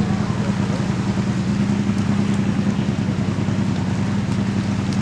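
A motor running steadily, with a low hum that has a fast, even pulse.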